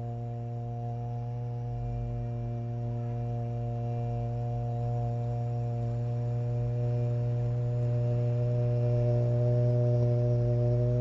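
Voices holding a long chanted 'O' in unison as a single unbroken low drone with overtones, gradually swelling louder.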